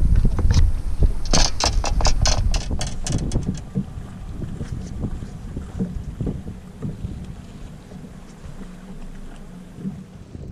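Wind buffeting the microphone, strong for the first few seconds and then easing, with a quick run of about a dozen sharp clicks and rattles between one and three and a half seconds in.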